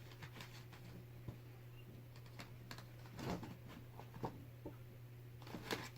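Faint scattered taps and clicks of a small SIM card package being handled and pried at, over a steady low hum.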